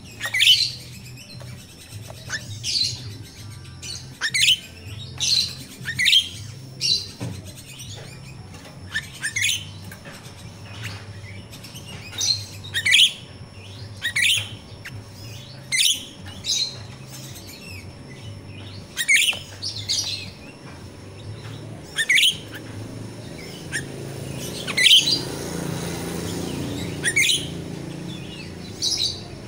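Grosbeak starling (jalak rio-rio) giving short, sharp calls that fall in pitch, repeated one to two seconds apart. A low rustling noise comes in over the last few seconds.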